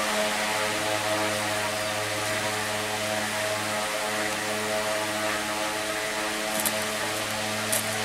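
Electric pedestal fan running: a steady mains hum with a whoosh of moving air. A few faint clicks come near the end.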